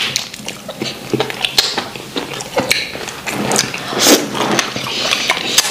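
Close-up eating sounds of wheat fufu and ogbono soup eaten by hand: chewing and wet mouth smacks, coming as short irregular clicks and smacks throughout.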